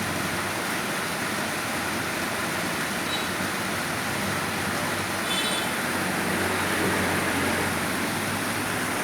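Steady rushing background noise with a faint low hum underneath, unchanging throughout.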